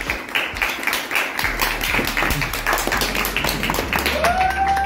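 A small group clapping and cheering, with voices mixed in; about four seconds in a held high note rises in and holds.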